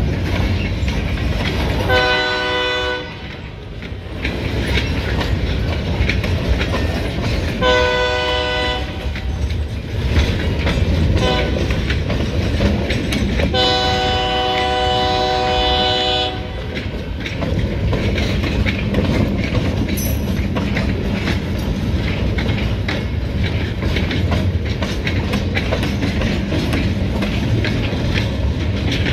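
Freight cars loaded with pulpwood rolling through a grade crossing, with steady wheel rumble and clatter. The lead locomotive's horn, on an EMD SD40-2, sounds three times: a blast about two seconds in, another about eight seconds in, and a longer one about fourteen seconds in.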